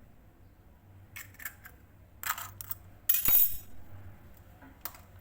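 An egg tapped against the edge of a mixing bowl and broken open: a few light knocks, then a louder, sharp crack about three seconds in.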